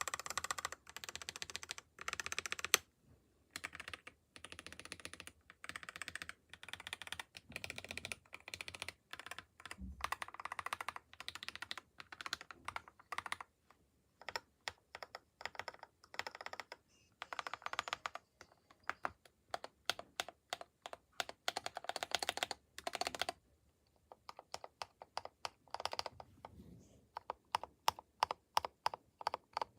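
Typing on a custom-built mechanical keyboard: quick runs of key clicks broken by short pauses. Near the end the typing thins to separate keystrokes.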